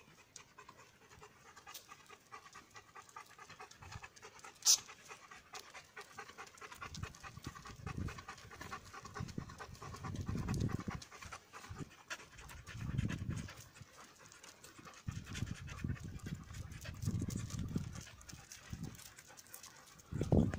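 Dogs panting in quick, rhythmic breaths, with a sharp click about five seconds in and a few low rumbling swells in the second half.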